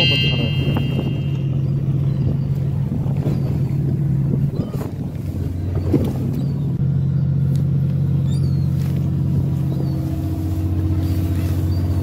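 Fishing boat's engine running with a steady low drone that shifts in tone a few times, with a few light knocks.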